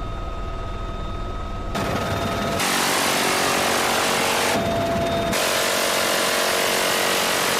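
M134 six-barrel minigun firing long sustained bursts, a continuous high-rate buzz. The sound changes abruptly a few times where clips are cut together: quieter in the first two seconds, then louder and denser from about two and a half seconds in.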